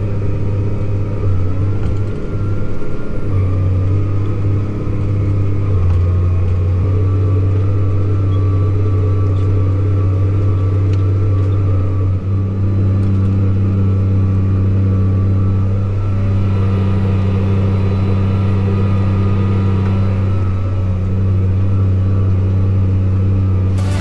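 A Case IH tractor's diesel engine running steadily under load while pulling a field cultivator, heard from inside the cab as a constant low drone.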